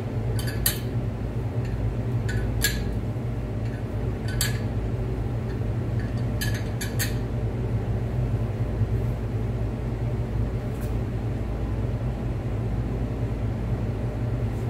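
Sharp metal clinks of a wrench on the nut of a threaded-rod damper installer as it draws the harmonic damper onto an LS V8's crankshaft, scattered mostly through the first seven seconds, over a steady low hum.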